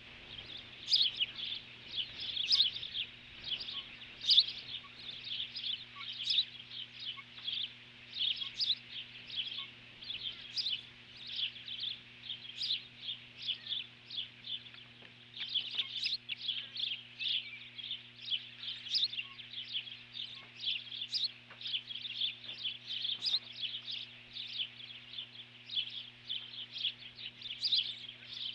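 Osprey giving a steady run of short, high, whistled chirps, about three a second, without a break: the alarm calling of adults guarding their nest and chicks.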